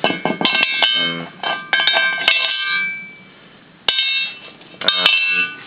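Thick steel plate clanging as it is handled and knocked: a quick run of metallic strikes, one ringing on for nearly a second about two seconds in, then two more clangs near the end.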